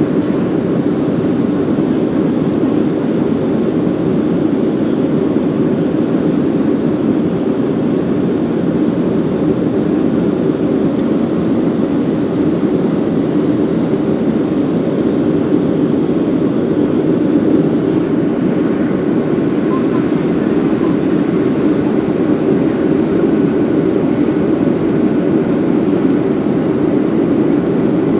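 Steady cabin noise of a Boeing 737 jet airliner: an even rumble of engines and rushing air, with no change in level.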